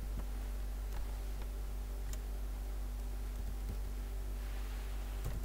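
A few sparse clicks from a computer mouse and keyboard, over a steady low electrical hum.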